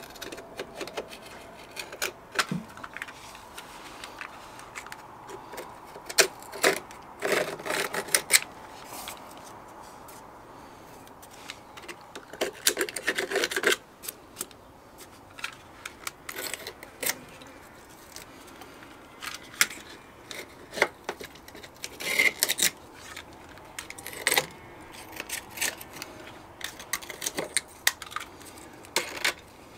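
Stanley knife blade scraping tough, sticky mastic off the edge of a polished granite sink: irregular short scrapes and clicks of metal on stone, with denser runs of scraping about six seconds in, again around thirteen seconds, and after twenty seconds.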